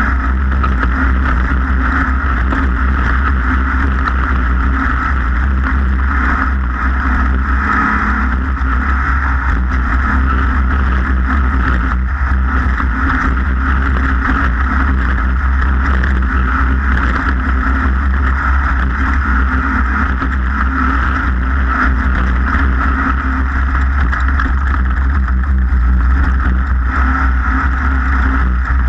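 Off-road race vehicle driving at a steady pace, its engine and running gear making a loud, unbroken noise with a heavy low rumble.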